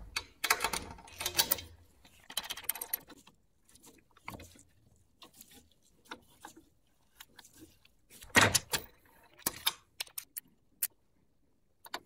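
Metal parts of a bicycle headset press clinking and scraping as its threaded rod and cups are fitted through the head tube and turned by hand to press in the headset bearing cups. The sound comes in irregular clusters with a few sharp ticks, loudest near the start and again past the middle.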